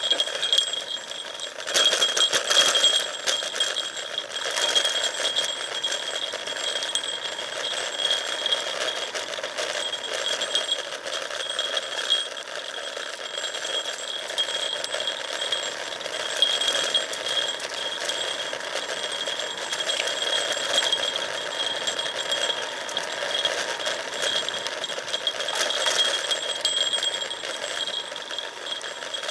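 Road bike rattling and ticking as it coasts downhill over a rough, leaf-strewn paved road, with a steady high-pitched ring running throughout.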